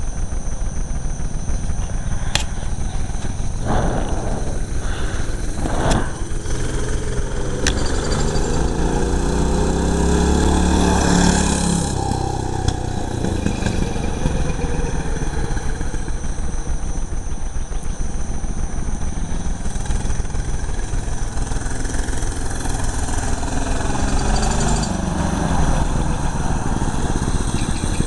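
6.5 hp Honda-clone single-cylinder OHV engine on a minibike running flat out on a speed run, held by its governor at 3600 rpm and growing louder as the bike comes up close near the end. A louder vehicle pass-by swells and fades around the middle.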